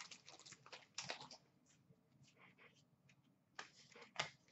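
Faint handling of trading cards: soft rustles and a few light clicks as the cards are slid and flicked through by hand, with two sharper clicks near the end.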